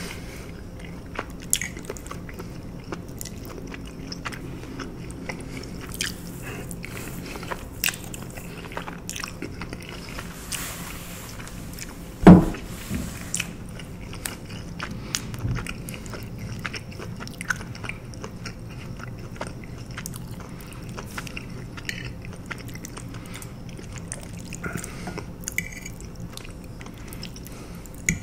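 Close-miked mouth sounds of someone eating pasta alfredo: wet smacking and chewing clicks throughout, with one loud low thump about halfway through.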